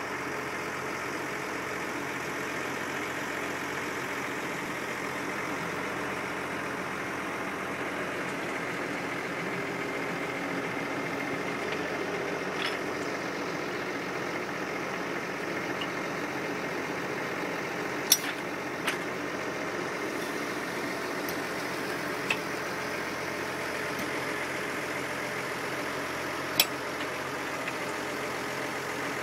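Engine running steadily to drive a hydraulic big-bag crane, with a few sharp clicks from the crane's metal fittings. The loudest clicks come about eighteen and twenty-seven seconds in.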